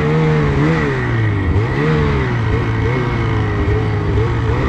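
Two-stroke mountain snowmobile engine running under throttle through deep powder, its pitch rising and falling as the throttle is worked.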